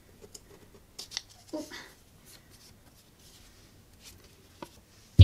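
A small paper card being picked up off a board and handled: a few light taps and short, soft rustles of paper.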